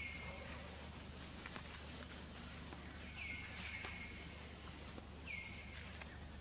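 Short high-pitched animal calls, each dropping sharply in pitch and then holding a steady note: one at the start, two in quick succession about three seconds in, and one more after five seconds, over a steady low hum.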